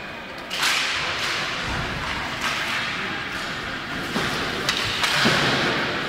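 Ice hockey play: skate blades scraping across the ice, with several sharp clacks of sticks and puck, the loudest a little past five seconds in.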